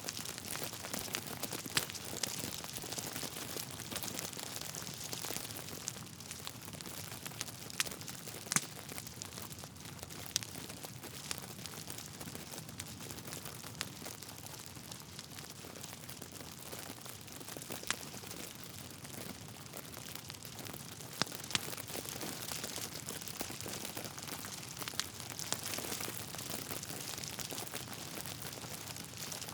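Wood fire crackling in a fireplace: a steady soft hiss with frequent small snaps and a few sharper pops of burning logs.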